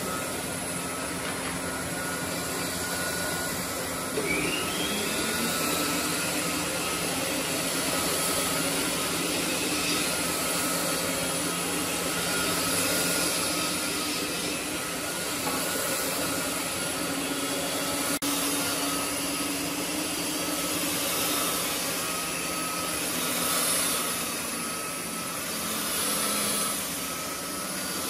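Handheld electric belt sander running steadily as it sands along a wooden box beam, a constant motor whine over the rasp of the belt. A short rising whine joins about four seconds in.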